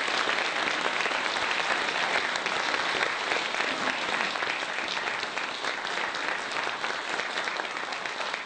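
Audience applauding: many hands clapping together, slowly dying down near the end.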